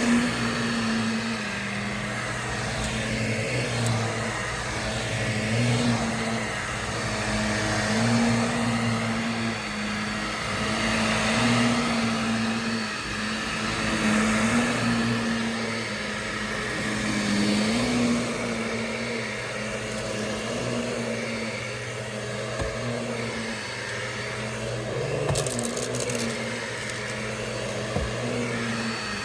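Vacuum cleaner running steadily over carpet, its motor hum wavering slightly in pitch and swelling and easing about every two seconds as it is pushed back and forth. A brief crackle of debris being picked up comes about 25 seconds in.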